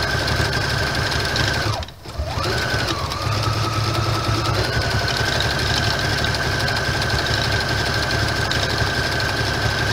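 Electric sewing machine running fast while sewing a blanket stitch, its motor whining steadily over the needle's rapid beat. It stops briefly about two seconds in, restarts slower, and speeds back up about five seconds in.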